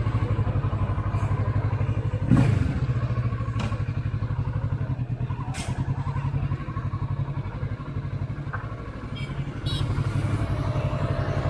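Kawasaki Ninja 650's parallel-twin engine running at low revs with an even pulse while the bike is ridden off. A sudden short thud about two seconds in, and the engine gets louder again near the end.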